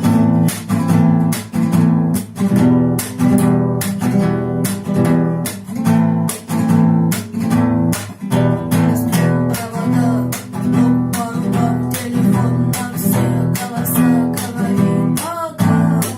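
Acoustic guitar strummed in a steady, even rhythm, playing chords.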